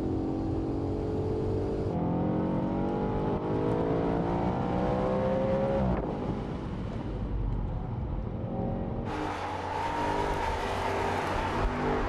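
Audi RS 5 Cabriolet's 4.2-litre V8 under hard acceleration: the engine note climbs steadily for about four seconds, drops sharply at a gear change, then climbs again. Near the end a louder rush of wind and tyre noise joins the engine.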